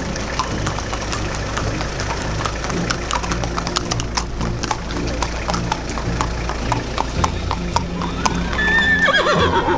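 Horses' shod hooves clip-clopping on an asphalt road as they are ridden past at a walk, with many overlapping steps. Near the end a horse gives a wavering whinny that falls in pitch.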